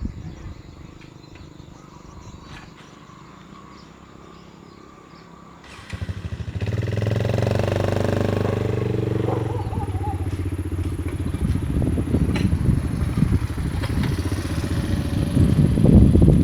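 A small engine, like a motorcycle's, starts up suddenly about six seconds in and runs with a fast, even pulse, getting louder near the end.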